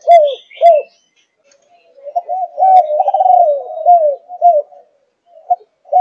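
A young Malaysian-line spotted dove cooing in the 'thúc gù' style. Two short coos come in the first second, then a pause of about a second. A longer run of coos follows, and a single short note comes near the end.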